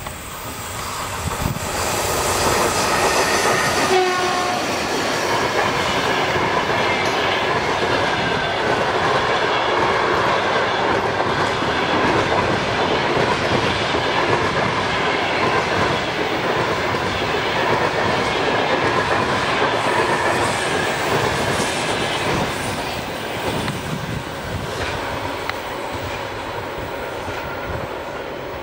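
Passenger train hauled by an EP1M electric locomotive passing at speed, the carriage wheels clattering over rail joints. It builds up over the first couple of seconds and eases off somewhat in the last few seconds.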